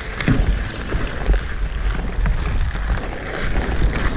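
Wind buffeting an action camera's microphone as a hockey player skates on outdoor pond ice, with skate blades scraping and carving the ice in short strokes.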